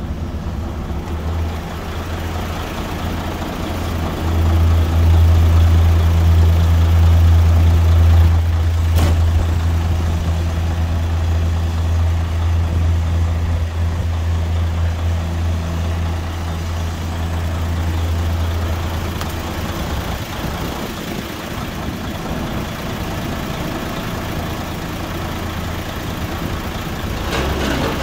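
Mercedes-Benz Actros 4140 tipper truck's diesel engine running at a steady idle. The hum grows louder about four seconds in and settles back down a few seconds before the end.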